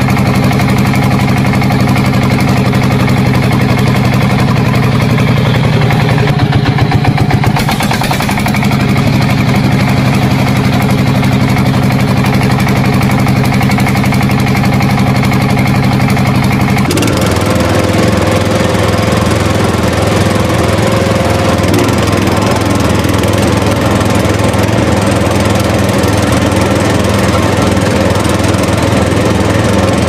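An engine runs steadily and loudly. There is a short spell of rapid knocking about seven seconds in, and about seventeen seconds in the sound changes abruptly to a rougher, buzzier running note.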